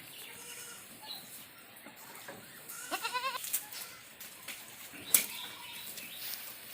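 A goat bleating once, a short quavering call about three seconds in. A sharp click follows about two seconds later.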